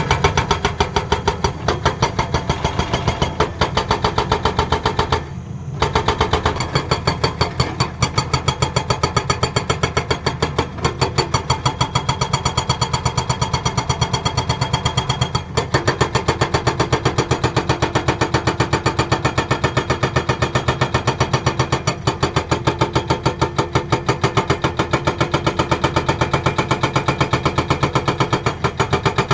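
Hydraulic rock breaker on a Tata Hitachi excavator hammering in rapid, even blows over the running engine, with a brief pause about five seconds in.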